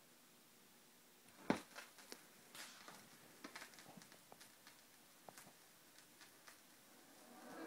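Faint clicks and ticks from a turntable stylus in the lead-in groove of a spinning vinyl record, with one sharper click about a second and a half in. Music starts to fade in near the end.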